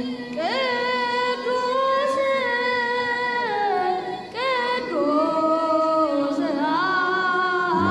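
A boy singing a hymn solo and unaccompanied into a microphone, in a high voice. He sings three long phrases of held notes joined by sliding, ornamented turns.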